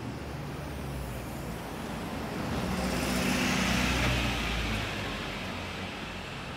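Street traffic at a tram stop: a steady low hum, with the engine and tyre noise of a passing road vehicle swelling about three seconds in and fading away again about five seconds in.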